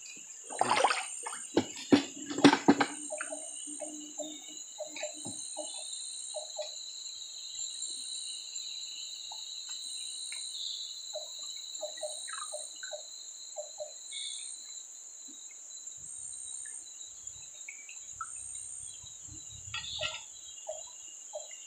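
Steady high-pitched drone of insects, with a faint pulsing layer on top, and an animal's short low calls repeating in small groups of two to four. A few sharp knocks and splashes in the first three seconds.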